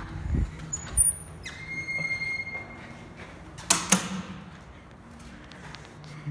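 A single electronic beep from the Schindler elevator's landing fixtures, held steady for about a second. About two seconds later comes a sharp knock, the loudest sound, over a low steady hum.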